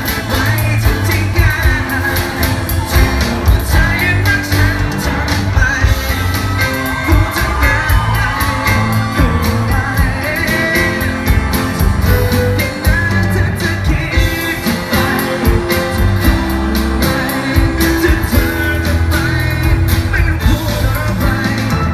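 Male singer singing live into a handheld microphone over a band playing pop music with a steady beat, amplified through the stage speakers.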